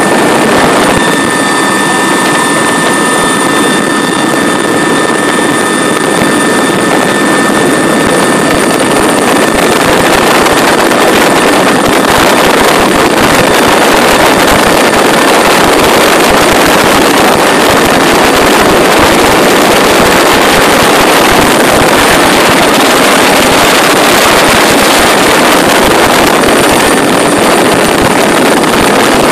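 Atlas Oryx (Puma-derived) military transport helicopter in flight, heard from its open side door: a loud, steady mix of rotor and turbine noise with wind rushing past, and thin high turbine whines that are clearest in the first ten seconds.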